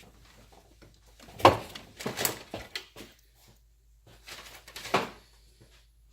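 Handling noises in a small room: a series of sharp knocks and clatters. The loudest comes about a second and a half in, a cluster follows, and another group comes near five seconds.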